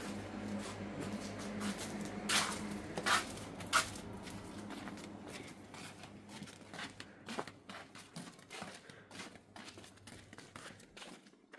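A steady low hum, with a few sharp rustling noises about two to four seconds in. The hum fades out about five seconds in, leaving scattered light clicks and scuffs that fit footsteps in sandals on concrete.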